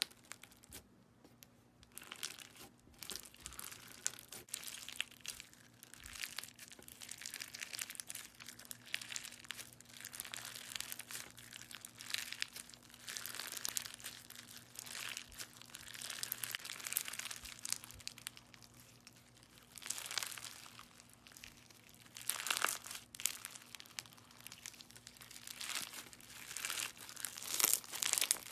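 Clear slime full of metallic sequins being squished, pressed and stretched by fingers, making a crinkly, crackling sound that comes in repeated swells as the hands work it.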